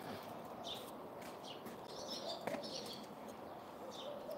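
Small birds chirping in the background: short, high chirps at irregular intervals, with a low wavering call about two seconds in and again near the end.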